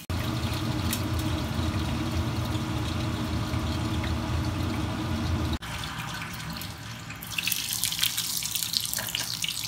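A steady rushing noise that cuts off abruptly about halfway through. About seven seconds in, hot oil starts crackling and sizzling as pieces of beef offal (horumon) shallow-fry in a pot.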